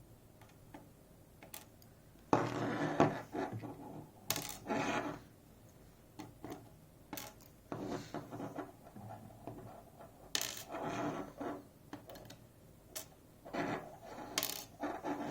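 Small metal key pins from a safe deposit lock clinking and jingling as they are taken out and dropped onto a hard surface, in several short bursts with lighter ticks between.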